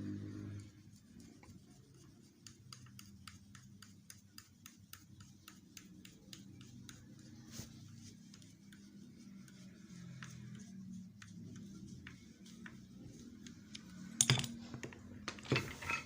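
A run of light, quick clicks, a few a second, over a low steady hum, followed by two louder knocks near the end.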